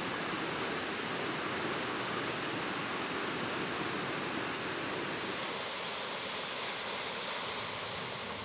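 Waterfalls pouring down a cliff face: a steady, even rush of falling water.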